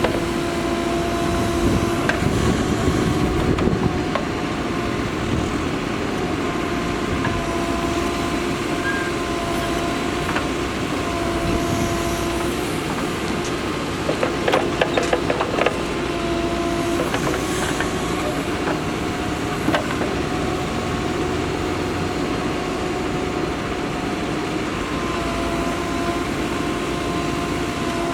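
Mahindra Earthmaster SX backhoe loader's diesel engine running steadily at work, with a whine that cuts in and out every few seconds. A few clanks come about halfway through.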